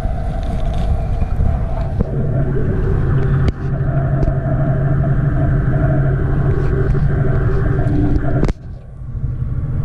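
Ship's engines running under way, heard through the hull as a steady low rumble and hum. Two sharp knocks, the second near the end, after which the sound dips for about a second before coming back.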